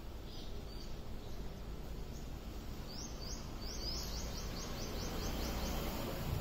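A small bird calling in a quick series of short high notes, about five a second, for a couple of seconds midway, with a couple of faint chirps near the start, over a steady low outdoor background rumble.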